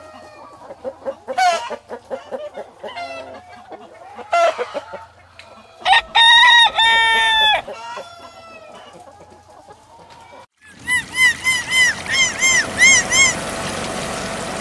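A rooster clucking, then crowing once loudly about six seconds in. Near the end, after an abrupt cut, a quick run of short high chirps sounds over a steady rushing noise.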